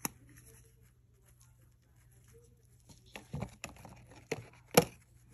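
Small brush dabbing chameleon powder into a silicone snowflake mold: a click at the start, then faint brushing, then a quick run of light taps and knocks about three seconds in, the sharpest near the end.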